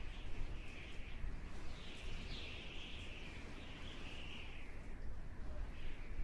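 Nature ambience of birds chirping in a continuous wavering wash, over a low steady rumble.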